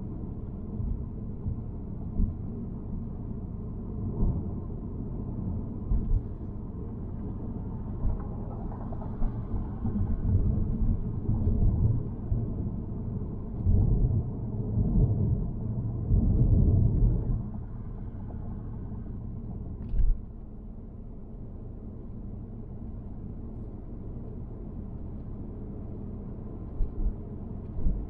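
Road noise of a car being driven, heard from inside the cabin: a steady low rumble of tyres and engine that swells louder for several seconds midway, with a few short thumps, the sharpest about twenty seconds in.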